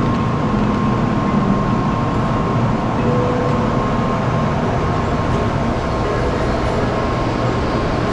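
Shinkansen bullet train running: a steady, even rush of rumbling noise with a faint steady whine.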